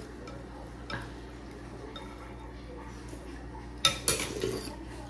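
Ceramic soup spoons and dishes clinking at a meal table. A small clink comes about a second in, and a sharp, loud clatter near the end is followed by a brief jumble of clinks, all over a steady low hum.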